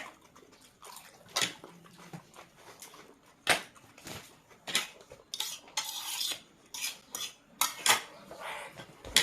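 Cutlery clinking and scraping against a plate during eating: a handful of sharp, irregularly spaced clinks, with a longer scrape about six seconds in.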